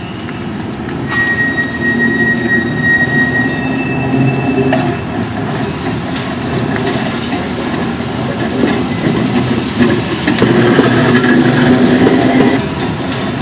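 Vintage New Orleans streetcar approaching along curving track and passing close by: a thin high squeal from the wheels in the first few seconds, over a rumble and clatter of steel wheels on the rails that grows louder and is loudest as the car goes past near the end.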